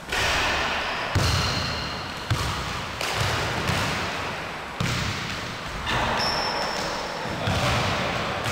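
Basketball thuds on a hardwood gym floor with players' footsteps, all echoing in the large hall. Two brief high squeaks of sneakers on the hardwood, about a second in and again about six seconds in.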